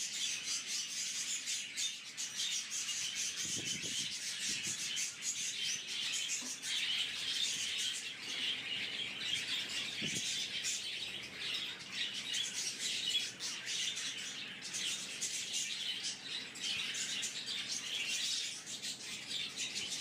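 A colony of budgerigars chattering and chirping continuously, many birds calling over one another.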